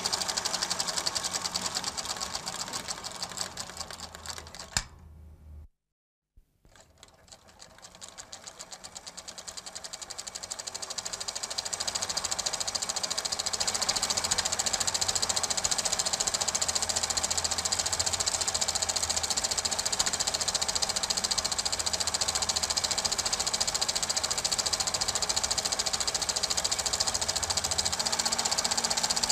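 Super 8 film projector running with a fast, even mechanical clatter. About four seconds in it fades down, with a single click, to a moment of silence, then fades back up to full level over the next several seconds.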